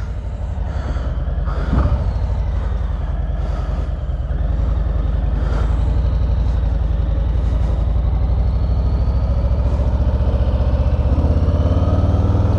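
Harley-Davidson Street Bob's V-twin engine running on the road, heard through a helmet-mounted microphone. Its pitch climbs as the bike accelerates near the end.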